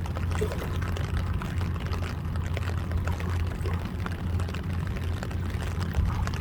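River water splashing and gurgling, with a steady low rumble underneath.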